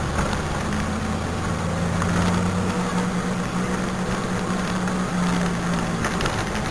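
Steady engine and road noise of a car driving, picked up inside the cabin by a dashboard camera, with a low even hum throughout.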